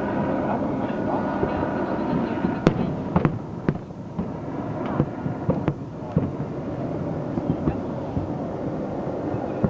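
Aerial fireworks bursting: a run of sharp bangs, about six of them spread between roughly two and a half and six and a half seconds in, over a steady background din.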